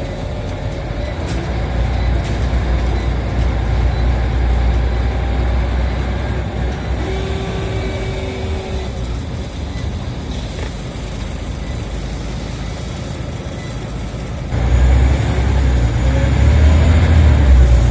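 Scania OmniCity single-deck bus heard from on board while driving: steady engine and road rumble, with a brief steady whine-like tone about eight seconds in. About fourteen and a half seconds in the engine suddenly gets louder and rises in pitch as the bus accelerates.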